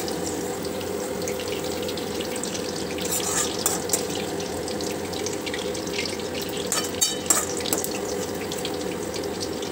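Sliced onions frying in hot oil in a pan, a steady sizzle, now deep-browned for beresta. A few clinks of a utensil against the pan about seven seconds in.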